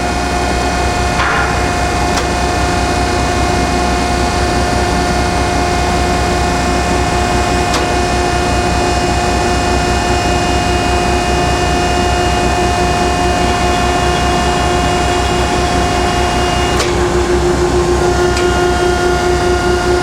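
A Landis 1R cylindrical grinder running a hydraulic plunge-grind cycle with spark-out. The wheel and hydraulic system give a steady hum with a high whine, and a few sharp clicks come from the feed mechanism. Near the end a click and a change in the whine mark the end of the feed.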